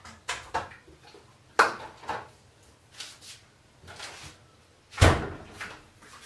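Kitchen handling noises: a string of irregular knocks and clunks, as of things being picked up and set down or a cupboard being opened and closed, the loudest a dull thump about five seconds in.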